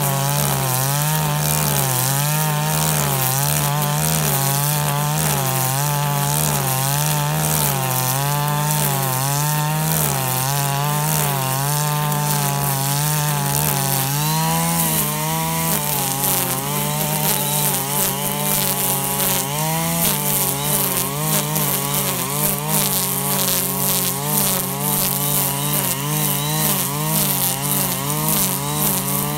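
KAAZ URP260AL 25cc two-stroke brush cutter running at high speed, its pitch wavering up and down as the cutter bites into grass. About halfway through the pitch steadies and many sharp ticks come through over the engine.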